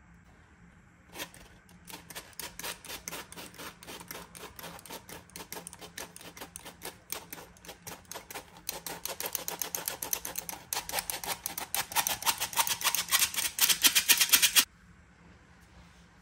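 Hand-held flour sifter being worked over a bowl, its mechanism clicking rapidly and steadily as flour falls through. The clicking grows louder and cuts off suddenly near the end.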